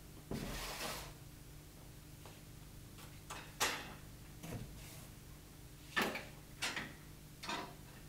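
Handling noises from unpacking a mini tiller: a brief rustling clatter about half a second in, then several short knocks and scrapes as the tiller sits on a metal lift table and its cardboard protectors are handled.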